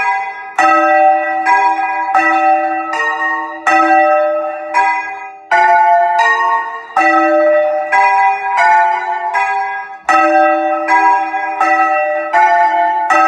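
A peal of swinging church bells rung by hand with ropes, in the Bolognese style. Several bells of different pitch strike in turn, about one stroke every two-thirds of a second, each ringing on under the next.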